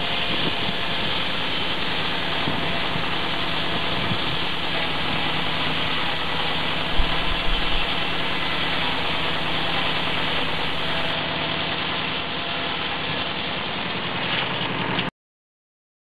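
Tractor-driven rack saw running, the tractor engine powering the circular blade as it rips the first cut along a spruce log. A steady, dense mechanical noise, with a brief louder knocking about seven seconds in, that cuts off abruptly near the end.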